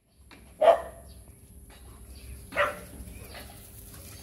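A dog barks twice, about two seconds apart, the first bark the louder.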